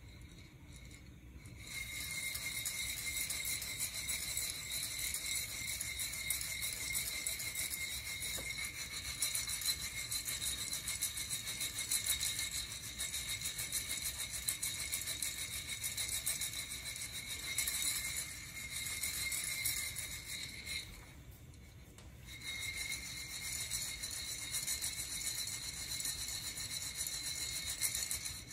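Coffee beans rattling inside a Nuvo ceramic hand roaster as it is shaken during roasting. The rattling starts about two seconds in, pauses briefly around two-thirds of the way through, then resumes.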